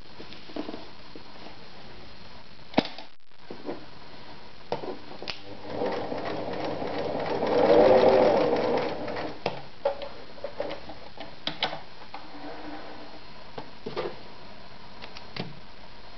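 Singer Starlet 354 electric sewing machine stitching through leather. Its motor runs for about four seconds near the middle, building up speed and then stopping. Before and after come scattered clicks and knocks of the work being handled at the machine.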